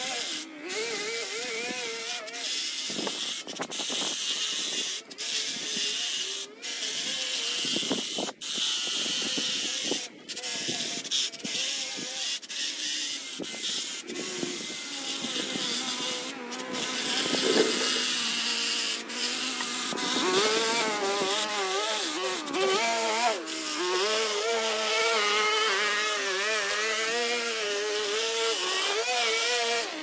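Cordless pole hedge trimmer running and cutting along the top of a hedge: a steady electric buzz with blade chatter, its pitch wavering. The sound dips briefly several times in the first third.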